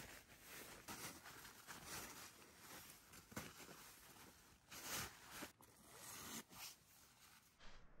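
Soft rustling of synthetic outdoor clothing and tent nylon as a person shifts snow-covered legs, with a few louder swishes.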